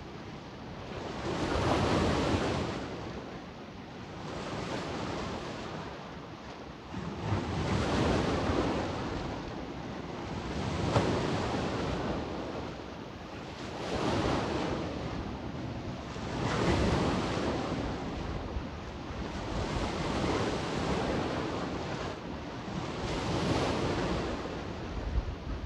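Sea waves breaking on the shore in a steady rhythm, each wash of surf swelling and falling away about every three seconds.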